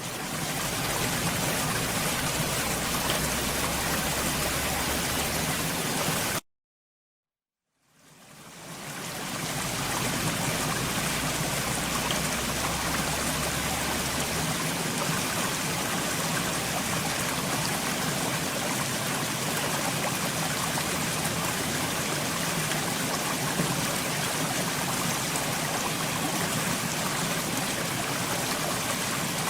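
Steady rushing of running water, like a stream. It cuts off suddenly about six seconds in, stays silent for over a second, then fades back in and runs on evenly.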